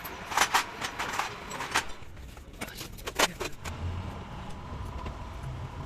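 Metal clinking and tapping: a run of irregular sharp metallic clicks and knocks, some with a short ring, the loudest a little over three seconds in, over a low rumble.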